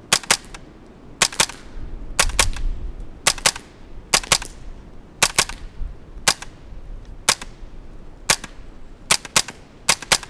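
Suppressed rifle shots through a Dead Air Mask .22 suppressor, about a dozen sharp reports at roughly one a second.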